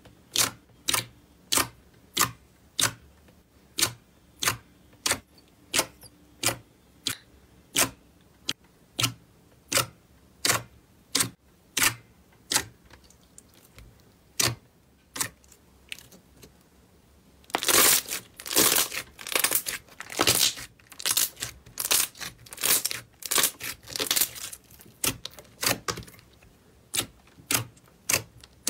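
Fingers pressing and poking white slime, making sharp, wet popping clicks at about one or two a second. About two-thirds of the way in the pops come much faster and louder as a dense crackling, then thin out again near the end.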